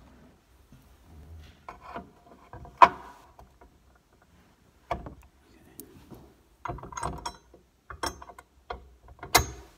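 Irregular metal clicks, knocks and scrapes of a steel fire-extinguisher bracket being hooked into the holes of a car's sheet-metal trunk crossmember and then fastened with a hex key. The loudest knock comes about three seconds in.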